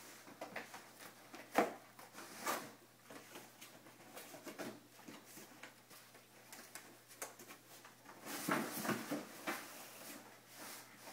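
Two springer spaniel puppies chewing and tearing at a cardboard box: faint, irregular scraping, rustling and ripping of cardboard with scattered knocks, one sharp knock a couple of seconds in, and busier tearing near the end.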